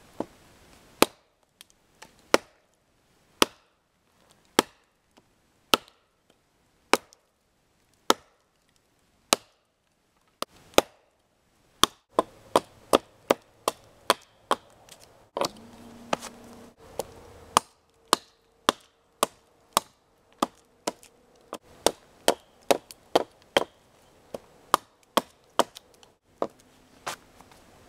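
Wetterlings large hunting axe chopping into a dead, rotten log, hewing a flat spot, in sharp single strikes. They come about one a second at first, then quicken to nearly two a second about halfway through.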